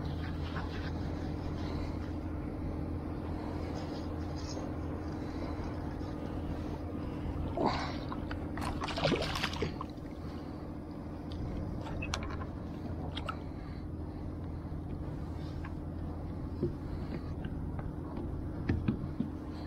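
Steady low mechanical hum, like a running engine, with a few brief knocks and rustles about eight to ten seconds in.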